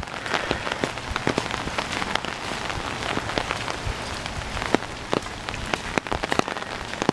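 Rain falling, with many individual drops striking close by as sharp, irregular ticks over a steady hiss.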